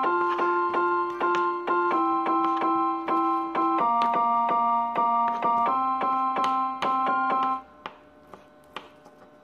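Background electric-piano music, steady repeated chords changing every couple of seconds, that stops about three-quarters of the way through. After it, a few faint taps of a knife on a plastic cutting board.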